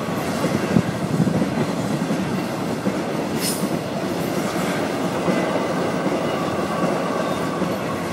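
CSX intermodal freight train's cars rolling past at speed, a steady rumble and clatter of wheels on the rails.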